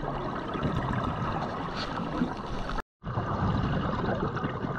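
Underwater ambience: a steady rushing, bubbling wash of water and a diver's rising air bubbles, heard underwater. It cuts out completely for a moment a little before the middle.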